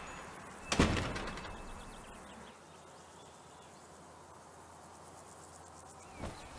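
A shop door bangs shut once, about a second in, its sound fading over about a second, followed by faint outdoor ambience.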